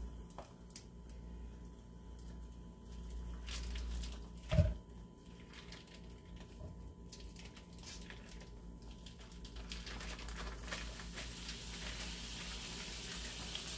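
Ground beef squeezed out of its plastic tube wrapper into an electric skillet: faint crinkling of the plastic and squishing of the meat, with one thump about four and a half seconds in as a lump lands in the pan. From about ten seconds in, a faint hiss builds as the meat starts to sizzle.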